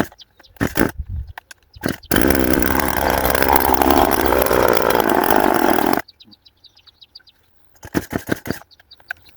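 Two-stroke chainsaw being pull-started: several sharp cord pulls, then the engine catches about two seconds in, runs steadily for about four seconds and cuts out suddenly. More pulls follow near the end. The stall is the fault being chased: the saw starts on fresh fuel but won't keep running.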